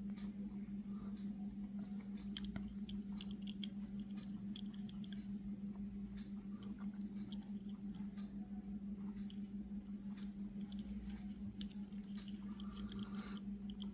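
Steady low electrical hum with scattered small clicks and faint rustles, typical of a small diecast toy car being turned over in the fingers.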